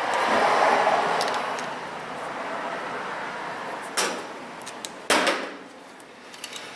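Hand tools and a small metal part being handled over a metal tool cart, giving two sharp clacks about a second apart near the end, over a steady rushing noise that swells in the first two seconds.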